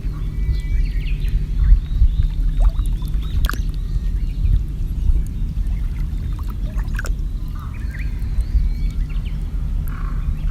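Water sloshing and lapping around a kayak, under a heavy low rumble of wind on the microphone, with short bird calls chirping now and then. Two sharp knocks, about halfway and three-quarters through.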